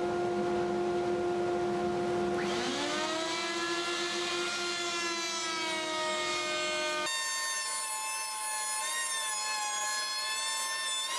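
Table router spinning a Freud drawer-pull bit, a steady high whine; about two and a half seconds in the pitch drops sharply and climbs back as the bit bites into the rubberwood board, the motor loading while it cuts a finger-pull groove. About seven seconds in the sound changes abruptly to a higher, slightly wavering whine.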